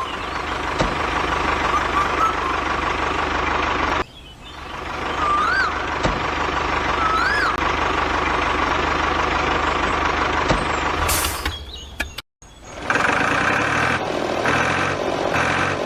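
A vehicle engine runs steadily, broken by two abrupt cuts. Twice in the middle a short whistle rises and falls, and near the end a repeating pulsed tone comes in.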